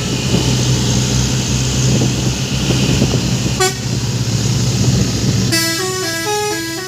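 Truck engine running steadily, with a short horn blip about three and a half seconds in. Near the end a multi-tone 'telolet' horn starts playing a quick melody, its pitch stepping up and down several times a second.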